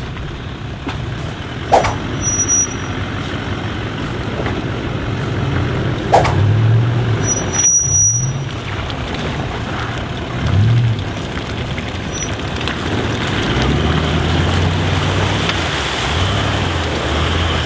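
A four-wheel drive's engine revving up and down in surges as it drives through a muddy, water-filled bog hole, its tyres churning mud. There are a couple of sharp knocks in the first few seconds.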